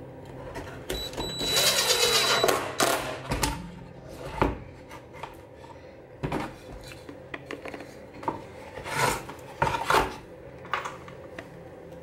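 A cordless drill driving a deck screw into wood, running for about a second and a half under load with a steady whine. Scattered knocks and clunks of wooden parts being handled follow.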